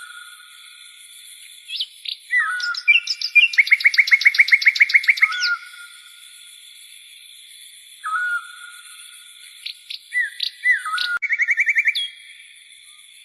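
Bird calls: a short whistled note, then a rapid run of chirps at about seven a second, the sequence repeating twice as if looped, over a faint steady high-pitched background.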